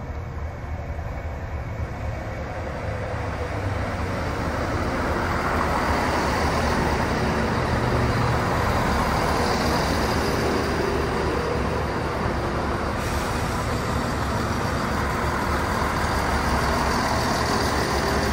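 Heritage diesel train running: a steady engine and rail noise that grows louder a few seconds in and then holds.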